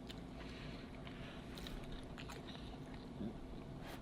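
Faint close-up chewing of food, with a few short soft clicks.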